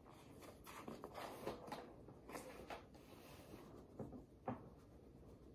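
Faint scattered clicks and rustles of a plastic cinnamon jar and its red cap being handled, with a few sharper ticks near the end.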